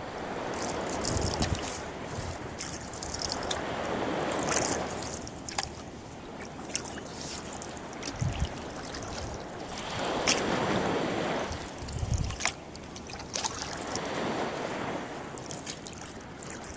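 Rowboat being rowed: the oars sweep through the water in slow strokes a few seconds apart, with swishing, dripping and splashing and a few dull knocks.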